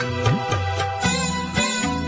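Instrumental break in a Hindi song: melody over bass and percussion, with no singing.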